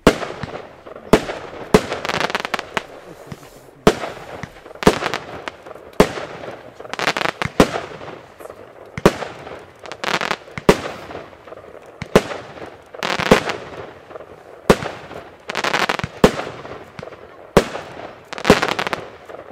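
Compound fireworks battery (Blackboxx Pyro Spektakel Level 1) firing shot after shot, about one sharp bang a second with uneven gaps. Each bang is followed by a second or so of crackling from the bursting glitter stars.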